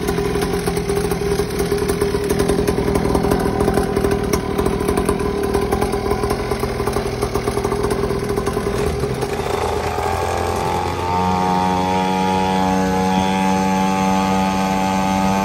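XPRO 50cc two-stroke mini pit bike engine running at a rough, steady idle, then revving up about two-thirds of the way in and holding a high, steady note.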